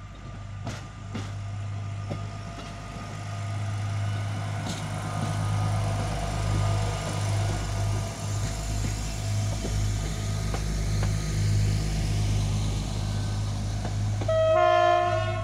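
Diesel railbus passing close by as it pulls away, its engine running with a steady low hum that grows louder as it comes alongside. A few sharp clicks sound in the first seconds, and a short pitched tone comes near the end.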